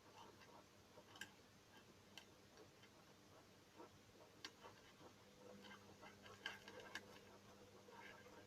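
Faint, irregular small clicks of beads and fishing line being handled while threading a beaded butterfly, over near silence.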